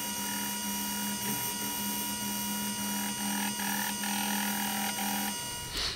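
Milling machine plunging a 16 mm end mill into aluminium bar to cut a flat-bottomed pocket: a steady motor whine with a cutting noise that comes and goes, and the sound drops away near the end. The cutter is a poor one for plunging, so the feed is taken very easy.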